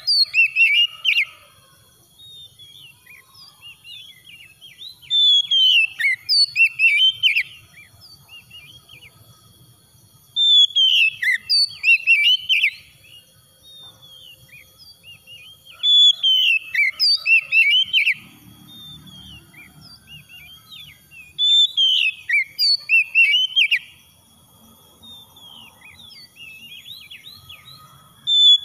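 Oriental magpie-robin singing: bouts of loud, varied whistled notes about two seconds long, repeated every five to six seconds, with softer scattered notes in between.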